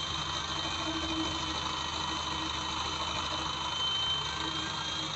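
Electric jigsaw running steadily, a constant high motor whine over the blade's sawing noise, cutting curves in a wooden board.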